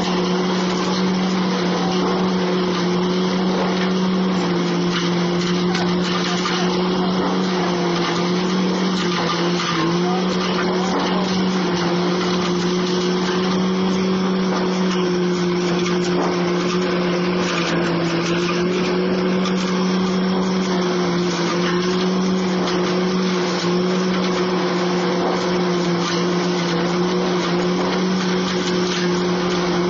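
Corn peeling and threshing machine running steadily under load as ears of corn are fed through it: a constant hum over a dense, even rattle of husking and shelling.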